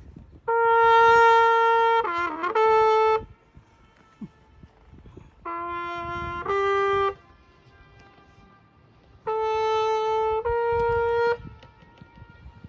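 A boatman's brass horn, trumpet-like, played for the lake's echo. It sounds three short phrases of held notes with pauses between, and the first phrase wavers and bends in pitch in the middle.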